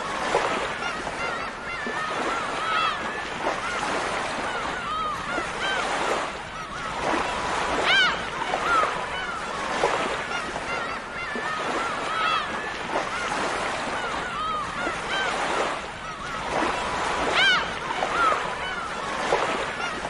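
A flock of gulls calling, many short arched cries overlapping with no pause, over a steady wash of surf. The loudest bursts of calling come about eight seconds in and again near the end.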